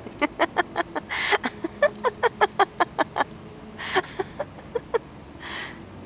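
A person laughing in a quick run of short pitched 'ha' pulses, about five a second. Three brief harsh buzzes cut in, from a grounded cicada the dog is nosing.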